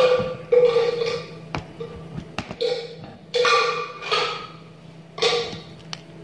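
Aari hook needle tapping and punching through fabric stretched on an embroidery frame while stitching glass beads. About six irregular taps, each with a short ringing tone, and a few fainter clicks between them.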